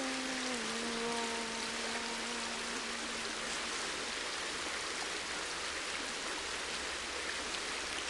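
Steady rush of flowing river water. Over it, a wordless sung note is held, dips slightly in pitch about half a second in, and fades out around the middle.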